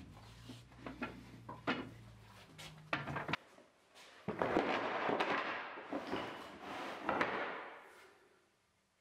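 Wooden boards knocking together as they are pulled from a timber rack. Then, about four seconds in, a longer scraping clatter as the boards are set down and shuffled on a workbench.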